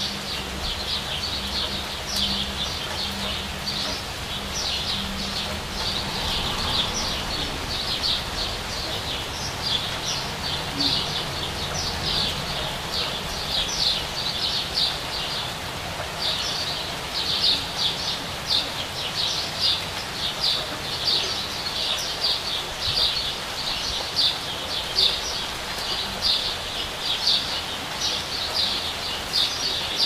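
Steady rain with a bird chirping over it, short high notes repeated rapidly and more strongly in the second half. A low hum sits under it for the first several seconds.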